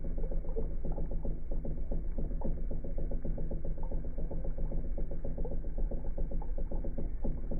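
Steady low hum from aquarium equipment, with a fast, irregular fine crackle over it.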